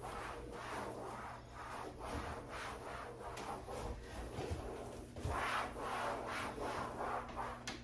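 Damp microfiber cloth rubbing over a longarm quilting machine in repeated wiping strokes.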